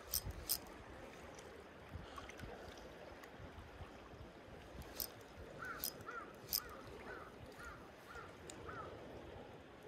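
A crow cawing seven times in quick succession, about two calls a second, over the rush of wind. A few sharp clicks sound near the start and midway through.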